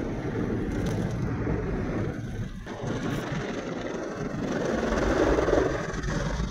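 Automatic car wash heard from inside the car: water spraying and rotating wash brushes scrubbing over the windows and bodywork, over a low rumble from the wash machinery. The brush noise swells louder about five seconds in as the brush sweeps across the windscreen.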